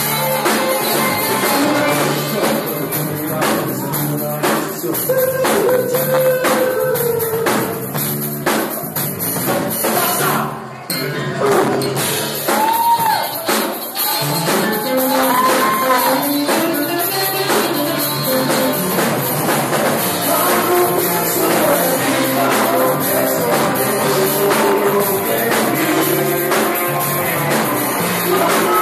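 Live rock band playing: electric guitars, bass, keyboard and drum kit, with the sound dipping briefly for a moment just after ten seconds in.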